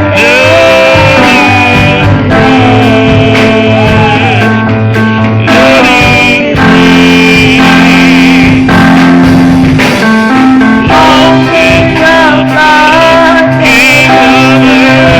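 Live gospel worship music: a lead instrument carries a sliding, bending melody over a steady bass line and drum beat.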